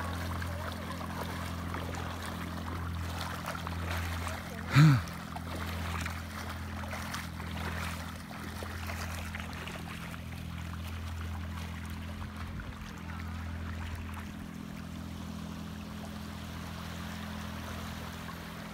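Shallow water splashing and trickling as people wade through it, over a steady low motor-like hum. About five seconds in, a short, loud cry from a voice rises and falls in pitch.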